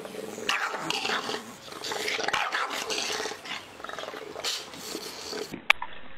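Two bulldogs growling at each other in rough stretches with short pauses. A sharp click near the end.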